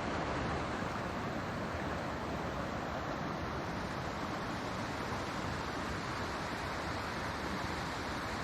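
River water rushing steadily, an even noise with no breaks.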